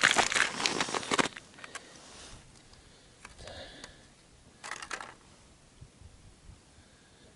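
Crunching and crackling of crushed ice and snow for about the first second as a person kneels at an ice-fishing hole. Then it goes nearly quiet, with a brief scrape on the ice about five seconds in.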